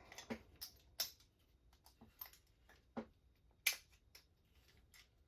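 Irregular small clicks and taps of hard plastic RC car kit parts being handled and fitted together, with one sharper click a little before the end.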